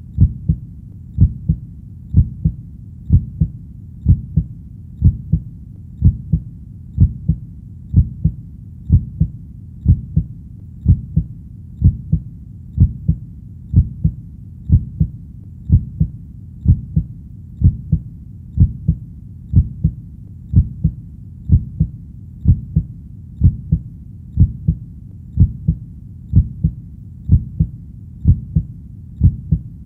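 Heartbeat beating at a slow, steady rate of about one beat a second. Each beat is a low double thump, lub-dub.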